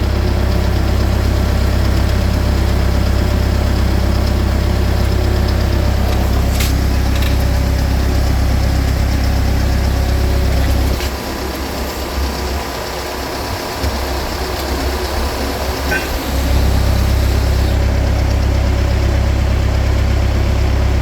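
Skid steer engine running steadily at idle. Its low hum drops away for about five seconds in the middle, then returns, and a couple of brief sharp clicks are heard.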